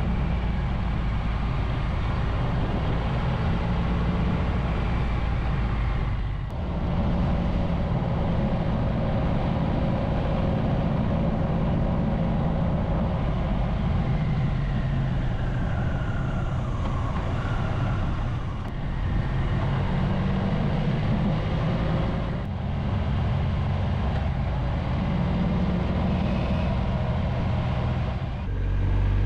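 Triumph Tiger 1200's three-cylinder engine running steadily under way, heard from the bike itself, with brief dips in the engine sound a few times and a slow fall in pitch partway through.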